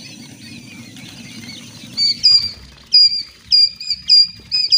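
A brood of quail chicks peeping: at first many soft, overlapping peeps from the crowd, then about two seconds in one chick close by starts calling loudly, clear high peeps roughly two a second.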